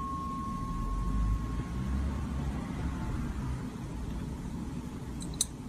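A steady low rumbling noise. A high thin tone fades out in the first second or so, and a short click comes near the end.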